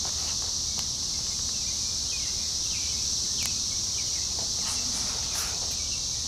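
Chorus of cicadas, a steady high-pitched drone with no break, with a few faint short chirps on top.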